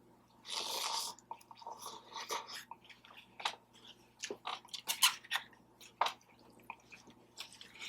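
Close-up chewing of birria meat, with irregular wet smacks and clicks from the mouth. A brief rush of noise comes about half a second in.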